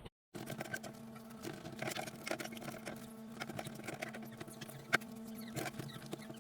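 Light clicks, taps and rubbing of fridge shelves and containers being handled during cleaning, over a steady low hum, with one sharper knock about five seconds in.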